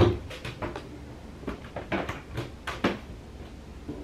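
A sharp thump as a large plastic water bottle is set down on a counter, followed by a string of light knocks and clunks as bottles are handled and a small cabinet or minibar door is worked at.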